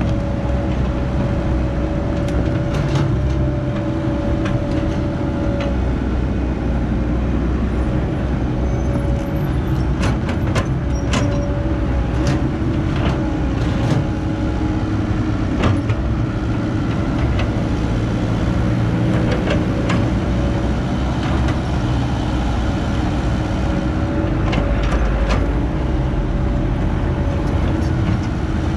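Caterpillar 312B hydraulic excavator's diesel engine running steadily under digging load, with scattered sharp clanks and knocks from the bucket and boom linkage.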